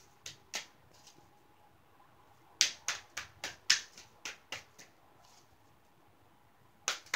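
Tarot cards being shuffled overhand: sharp card slaps, two single ones near the start, then a quick run of about four a second between roughly two and a half and five seconds in, and more just before the end.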